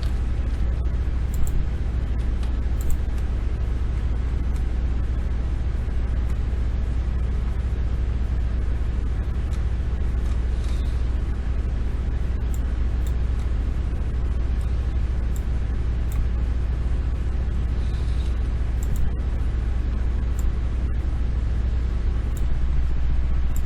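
Steady low hum under a constant faint hiss, with a few scattered faint clicks.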